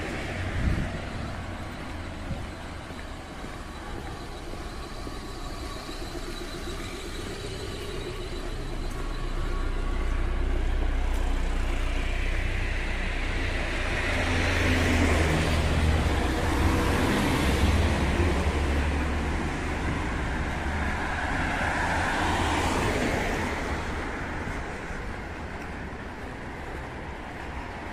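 Road traffic on a wet street: a steady low rumble of engines, with cars passing, the loudest going by about halfway through and another a few seconds later.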